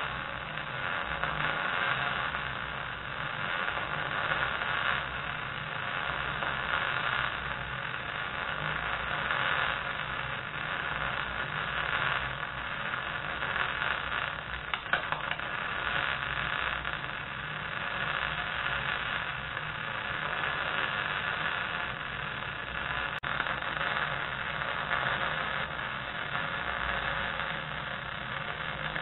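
Arc welding on steel: the arc's steady crackling sizzle as a bead is run, over a low hum.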